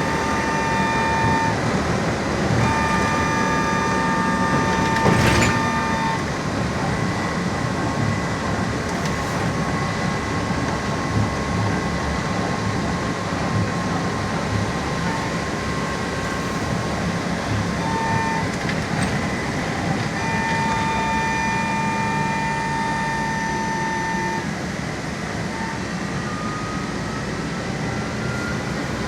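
LAZ E-183D1 trolleybus in motion, heard from inside the cabin: a steady running rumble with a high electric whine that comes and goes in several stretches. There is a single knock about five seconds in, and near the end a whine that rises in pitch as the trolleybus picks up speed.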